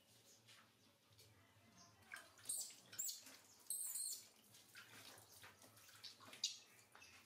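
Water splashing as a hand scoops it from a plastic basin over a baby monkey being bathed, with water running and dripping back into the tub. There are a few splashes, the loudest between about two and four seconds in.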